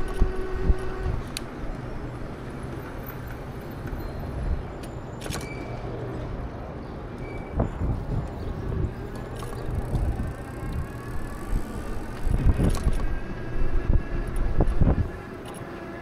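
Wind and road rumble on an action camera riding along on a moving e-bike, with city traffic around it. Scattered clicks and rattles run through it, and the low rumble comes in stronger gusts a few seconds before the end.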